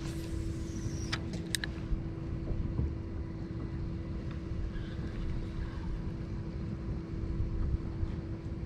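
Electric trolling motor of a Sportsman AutoPilot 120 kayak holding position on spot-lock: a steady hum over a low rumble of water and wind. A few sharp clicks come about a second in.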